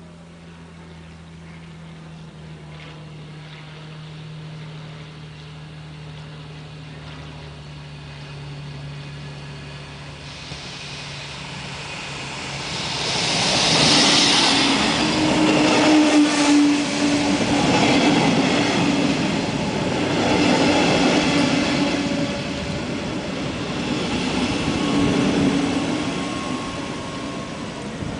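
A double-deck regional train approaching and running in along the platform with its cab car leading, then slowing to a stop. It is faint at first and grows louder, loudest as the front passes about 14 seconds in. A steady low tone comes and goes in the second half as it slows.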